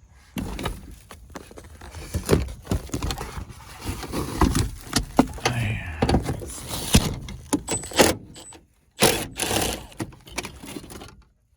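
Hand tools being rummaged through and handled: irregular clinking, rattling and knocks, with a brief high squeak about eight seconds in.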